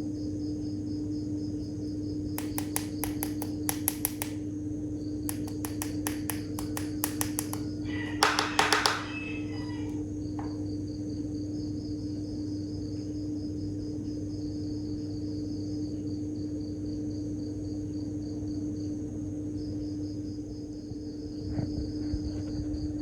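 Crickets chirping in a steady pulsing trill over a constant low hum, broken by two runs of rapid sharp clicks and a louder short rattling burst about eight seconds in.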